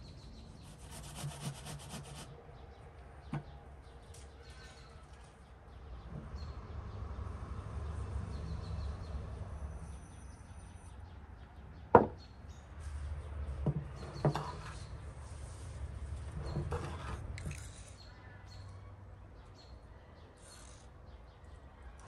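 Food preparation in a wooden bowl of grated apples: rubbing and scraping of spoons against the bowl in several stretches, with a single sharp knock about twelve seconds in, the loudest sound.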